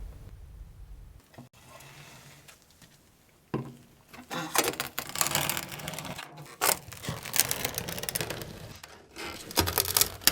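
Quiet at first, then from about three and a half seconds in a dense run of clicks, knocks and scraping as metal tool parts are handled and worked.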